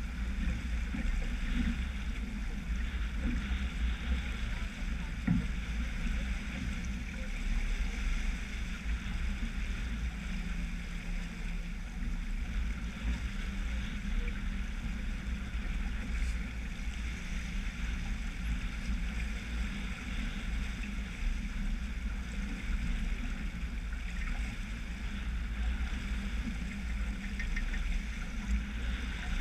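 Water rushing and hissing along the hull of a sailboat moving under sail, over a steady low rumble of wind on the microphone.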